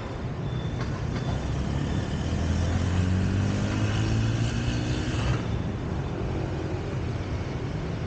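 City road traffic running steadily. One engine grows louder and rises slightly in pitch from about two seconds in, then drops away at about five and a half seconds as the vehicle passes.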